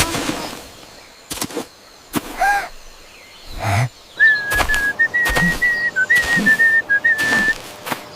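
A cartoon character whistling a short tune for about three seconds, starting about four seconds in, with sharp knocks and thunks before and during it.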